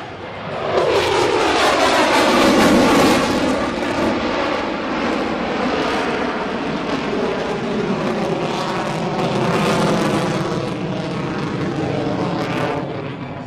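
Loud jet noise from an F-22 Raptor's twin Pratt & Whitney F119 afterburning turbofans as the fighter flies past overhead, its pitch gliding downward a second or two in. The noise continues steadily and starts to fade near the end.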